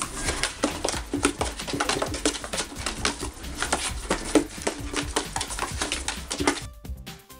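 Kitten scrabbling and tumbling inside a cardboard box: rapid, irregular scratches, knocks and rustles of paws and claws against the cardboard. The sound cuts off suddenly about a second before the end, giving way to music.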